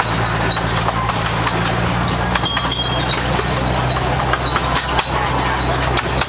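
Amusement-park track tram running along its rails: a steady low hum from the drive with running noise and scattered short clicks and knocks from the wheels and car.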